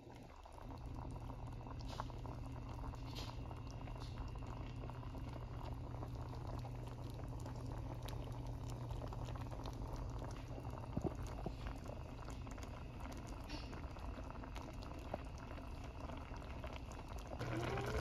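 Creamy chicken and spinach sauce simmering in a stainless steel pot: a steady, soft bubbling with many small pops, over a low steady hum.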